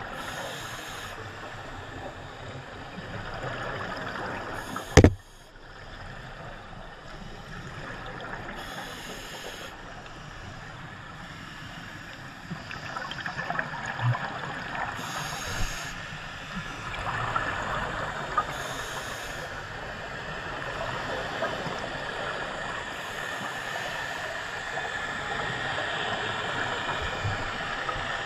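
Scuba diver's breathing heard underwater: a steady bubbling wash, with added hissing every few seconds from the regulator and exhaled bubbles. A single sharp knock about five seconds in is the loudest sound.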